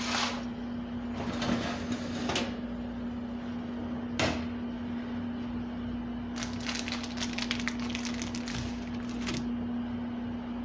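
Foil baking tray pushed onto an oven rack and the oven door shut with a sharp knock about four seconds in, over a steady low hum. From about six seconds in, a few seconds of rapid rustling and clicking.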